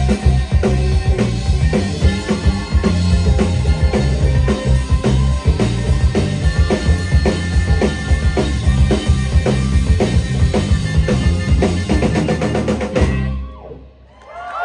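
Live band playing an instrumental passage over a steady drum-kit beat, stopping abruptly about thirteen seconds in.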